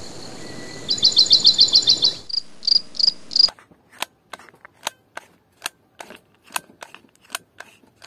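Rapid high chirping trills, then a few single chirps, then a run of sharp clicks about two or three a second as a hot glue gun's trigger is squeezed to push out glue.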